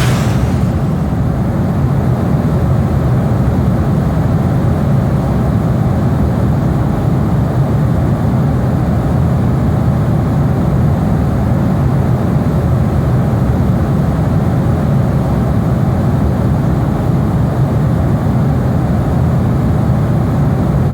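A heavy engine running steadily at constant speed, a low even drone that neither revs nor changes.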